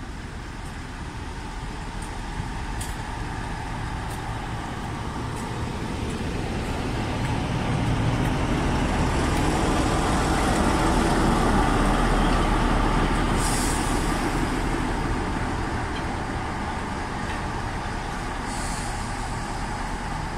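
Class 47 diesel locomotive's Sulzer twelve-cylinder engine running as it draws slowly past along the platform, growing louder to a peak about halfway through, then easing off as it slows. Two short high hisses from its air brakes come in the second half.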